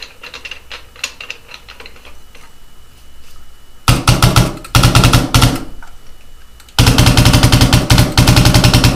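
Empire Axe paintball marker dry-fired with a Planet Eclipse barrel muffler on the barrel, shooting rapid strings of shots in a ramping fire mode, the muffler keeping it very, very quiet. After a few seconds of light handling clicks, a short burst comes about four seconds in, then a longer unbroken string near the end.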